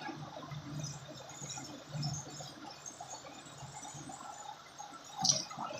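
Water gurgling and splashing over a low steady hum, with a sharper splash about five seconds in.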